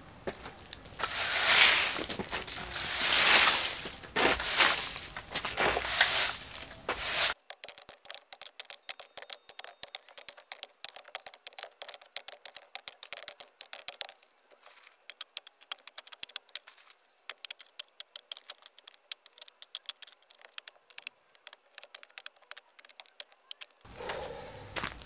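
Push broom sweeping the ground in about five rasping strokes. About seven seconds in the sound changes abruptly to a faint, rapid crackle of small clicks with no low end, which stops shortly before the end.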